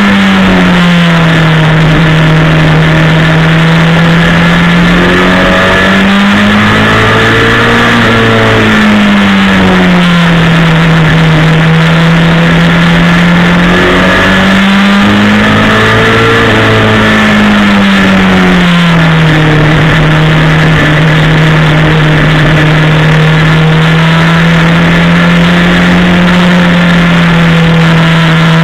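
Ministock race car's engine at racing speed, heard from inside the car. The revs swell and fall back a few times, then hold steady for the last ten seconds or so, over loud wind and road noise.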